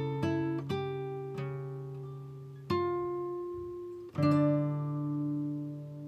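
Background music: slow plucked acoustic guitar, single notes and chords struck and left to ring out.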